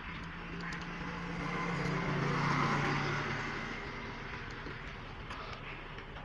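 A motor vehicle's engine passing by, swelling to its loudest about halfway through and then fading, its pitch dropping slightly as it goes by.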